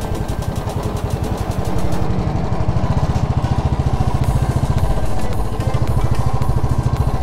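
Motorcycle engine running, a rapid steady low thumping throughout.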